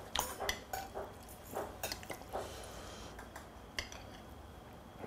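Metal chopsticks and spoon clinking and scraping against a ceramic plate of stir-fried pork as food is picked up: a string of light, irregular clinks.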